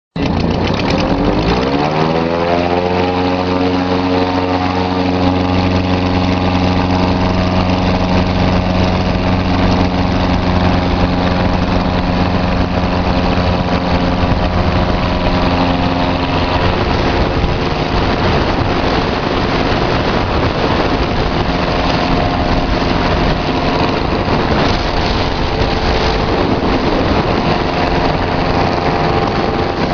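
Ultralight trike's engine and propeller running. The engine note rises as it revs up over the first couple of seconds, then holds steady. About halfway through the note becomes less clear and a rougher, noisier sound takes over.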